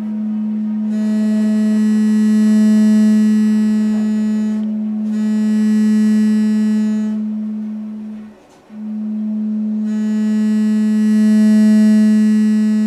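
Steady low electronic tone from a loudspeaker driven by a signal generator and amplifier. It swells louder and takes on a harsh, buzzy edge as the knob is turned, and cuts out briefly about eight seconds in.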